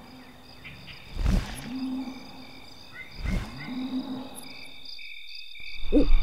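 Deep, heavy thumps of a giant's footsteps, about two seconds apart, each followed by a low tone that rises and then holds. A steady, high-pitched insect chirring runs underneath.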